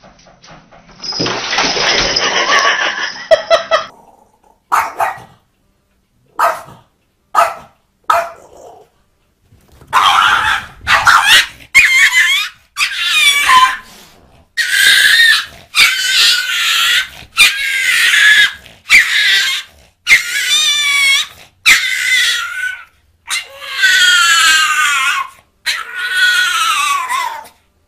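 A dog growling in a harsh noisy burst, then a run of high squealing cries, about one a second, several falling in pitch, as it scuffles with a cat.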